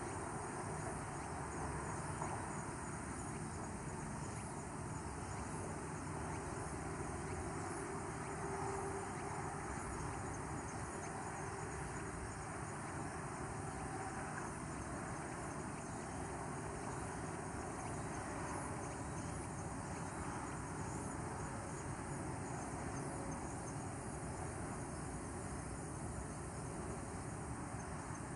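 Steady outdoor ambience of insects chirring, with faint repeated high chirps, over an even low rumble and hiss.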